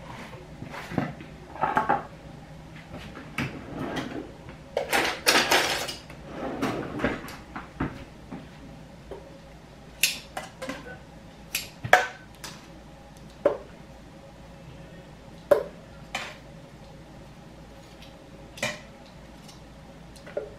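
Tomatillos being dropped into a plastic Nutribullet blender jar and the jar handled: scattered knocks and clatters, a busier run of clatter about five seconds in, then single knocks every second or two.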